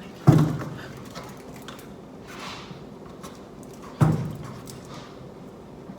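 Two heavy knocks on a kitchen surface about four seconds apart, each dying away quickly, with faint rustling and small clicks between them.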